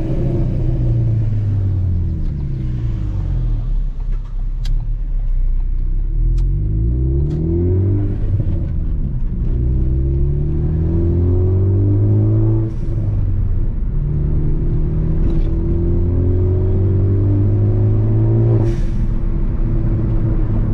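Ford Focus ST's turbocharged 2.0-litre four-cylinder engine and exhaust under a pops-and-crackles tune. The revs fall, then climb twice and drop off sharply. A few sharp pops and cracks come through, the sign of the tune firing on the overrun.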